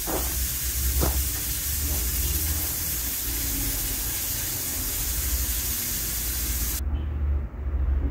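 Aluminium pressure cooker on a gas flame hissing steadily as steam escapes from its valve under pressure. The hiss cuts off suddenly near the end.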